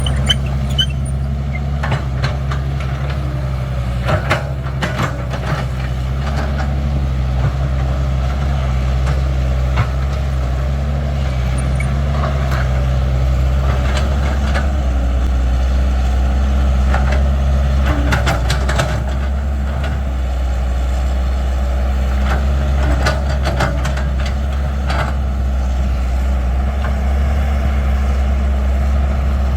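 Caterpillar 312 excavator's diesel engine running steadily under work, its note shifting about halfway through, with scattered knocks and clatter.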